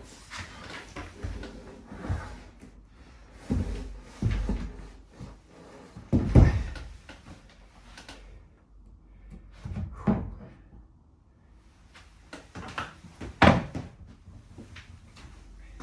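A series of knocks, bumps and short scrapes as objects are handled and set down on hard surfaces. The loudest knocks come about six seconds in and near the end, with quieter handling noise between.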